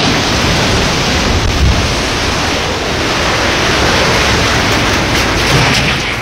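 Loud, steady rushing roar of a landslide, earth and debris sliding down the hillside.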